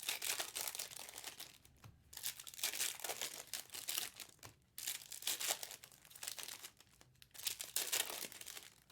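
Foil trading-card pack wrappers being torn open and handled, heard as bursts of crinkling with short pauses between them.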